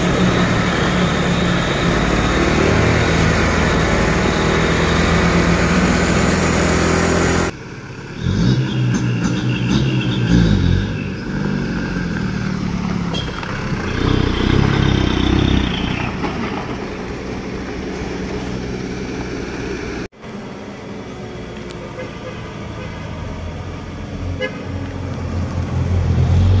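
Truck engine and road noise. After a cut there are several long blasts of a vehicle horn, stepping in pitch, about a third to halfway through. Then traffic noise, with an engine rising near the end.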